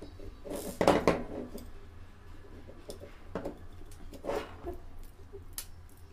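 Plastic quadcopter frame parts and wires handled on a desk: rustles and sharp clicks, loudest about a second in, over a steady low hum.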